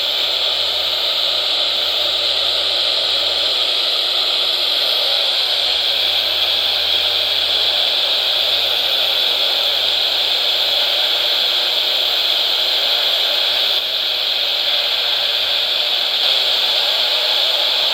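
Steady hiss of radio static, with no tone or voice on it.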